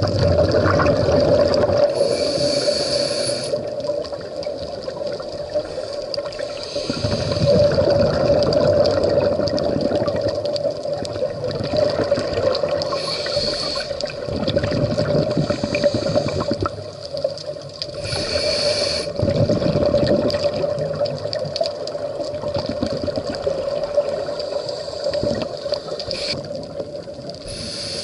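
Scuba breathing through a regulator heard underwater: a short hiss on each breath in, four times, and a longer gush of bubbles on each breath out, over a steady hum.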